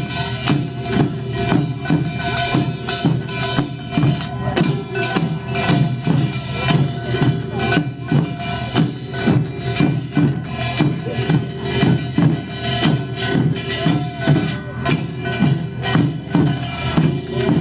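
Korean pungmul percussion band playing drums and gongs together in a fast, steady rhythm of about three strokes a second, the metal gongs ringing on over the drum beats.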